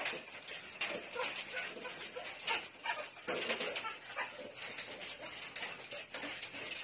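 Dogs barking and whining, many short calls close together.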